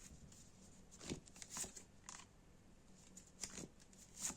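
Quiet room tone with a faint low hum, broken by a few soft, brief rustles and clicks of small handling noises.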